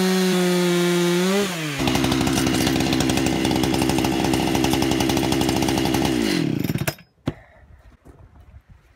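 Two-stroke Husqvarna chainsaw on an Alaskan chainsaw mill running at high revs with a steady high whine, dropping to idle about a second and a half in. It idles for several seconds, then winds down and stops about six and a half seconds in, and a single sharp knock follows a moment later.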